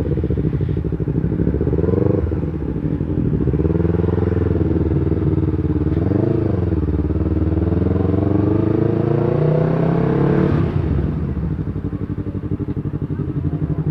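Yamaha R3 parallel-twin engine through an Akrapovic muffler, running under way with its pitch rising and falling. The pitch climbs steadily to about ten seconds in, then drops as the throttle closes and settles lower near the end.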